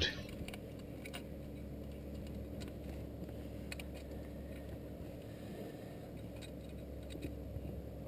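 Faint, scattered small clicks and ticks from a wooden rat trap's wire bail and trigger rod being handled as the trap is set, over a steady low background rumble.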